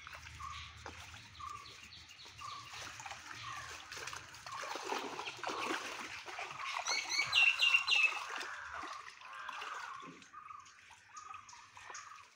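Shallow pond water splashing and sloshing as a fishing net is dragged through it, fullest through the middle. A bird calls with a short note over and over near the start and end, and a brighter run of chirps comes about seven seconds in.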